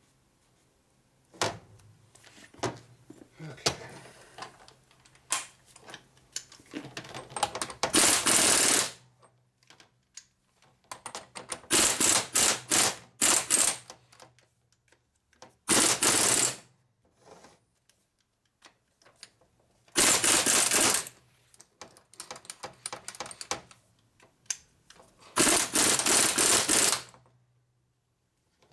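Rapid mechanical hammering from a power tool in about half a dozen bursts of one to two seconds, with lighter clicks and taps between them. A part of a 1942 Harley-Davidson WLA transmission is being driven on a little farther with each burst.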